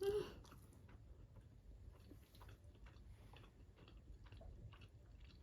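Faint chewing with small scattered mouth clicks, close to the microphone, as someone eats a dense red-bean bread. A brief voiced sound comes at the very start.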